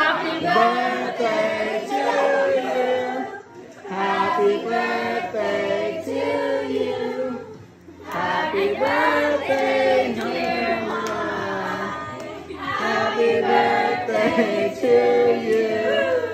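A group of voices singing a birthday song together, in four sung phrases with short pauses for breath between them.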